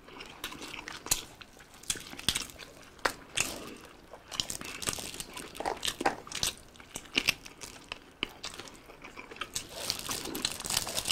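Two people eating biryani and roast chicken with their hands: chewing and crunching, with irregular sharp clicks and the crinkle of the aluminium-foil tray liners as fingers dig into the rice.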